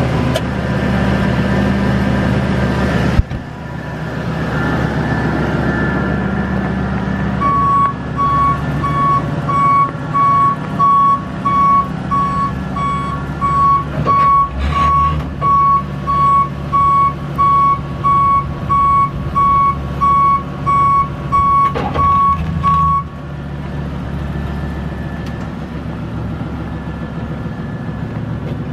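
Ford F550 bucket truck's 6.8-litre V10 gas engine running, with the truck's backup alarm beeping about once a second for some fifteen seconds in the middle as it reverses. A single sharp click sounds about three seconds in.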